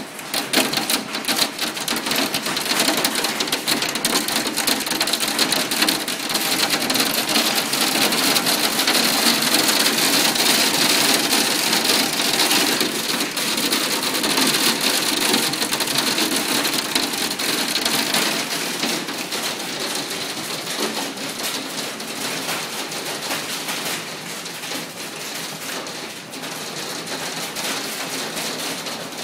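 Hail and heavy rain pelting down: a dense, continuous clatter of many small impacts. It is heaviest through the first half and eases a little after about eighteen seconds.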